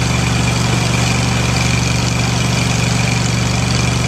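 Fire truck engine running steadily close by: an even, deep hum with a hiss above it.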